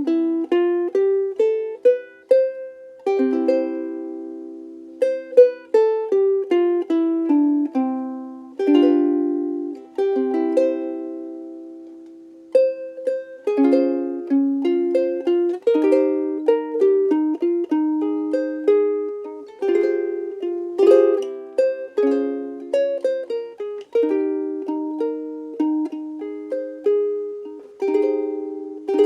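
Frayns FRUK-3MS soprano ukulele, solid Honduras mahogany, played solo fingerstyle: plucked melody notes and chords, each ringing and fading. The playing is sparse with short pauses at first and becomes fuller and more continuous about halfway through.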